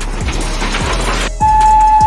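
Background music with a steady beat; a hissy swish fills the first second or so, then a held high synth tone comes back in about one and a half seconds in.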